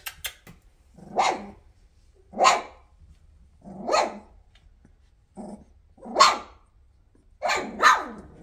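Two-and-a-half-week-old Weimaraner puppies giving short barks, roughly one a second, with two in quick succession near the end.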